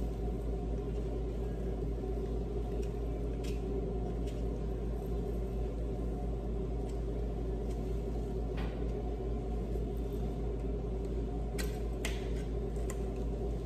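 Steady low hum of a running kitchen machine, with a few faint clicks and crinkles from a seasoning package being worked open by hand.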